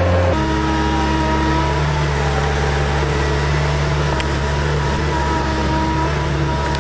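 Avant mini loader's Kubota engine running steadily under load while its ripper tine tears out a tree stump and roots. The engine note shifts pitch once about a third of a second in, then holds steady.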